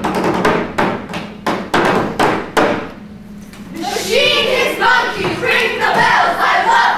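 A run of sharp percussive hits, about three a second, from the performers on stage, stopping about two and a half seconds in. After a short lull, loud voices start up about four seconds in and carry on.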